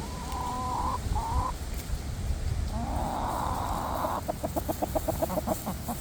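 Cornish Cross meat chickens calling: two short calls, a longer raspy call midway, then a quick run of clucks, about six a second, near the end.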